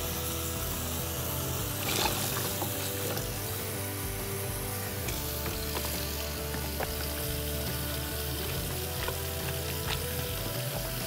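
Tap water running steadily into a stainless-steel sink, with splashing as helmet liner pads are rinsed in a plastic tub, and a sharp knock about two seconds in. Light background music underneath.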